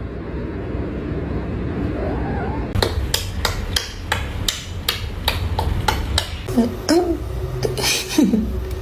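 Rapid hammering, about three strikes a second, starting about three seconds in over a low steady hum, with a few short squeaks near the end.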